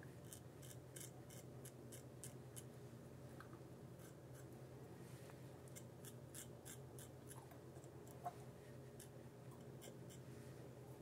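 Rockwell R1 double-edge safety razor scraping through lathered stubble on the upper lip: faint, short strokes in quick runs, with one sharp click a little past the middle.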